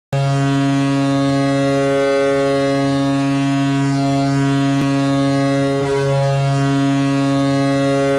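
Ice hockey arena goal horn blowing one long, low, steady blast that starts abruptly.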